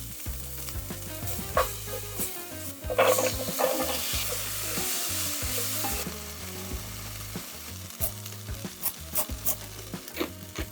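Food sizzling in a pot while it is stirred, with light clinks of the utensil against the pot, more of them near the end. Soft background music runs underneath.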